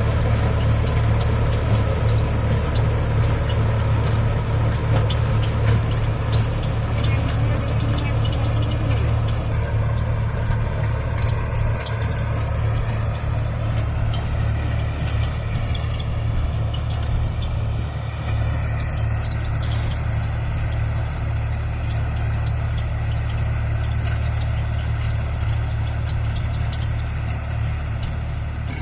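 Massey Ferguson 254 Dynasmart tractor's diesel engine running steadily with a constant low drone while the tractor ploughs hard soil.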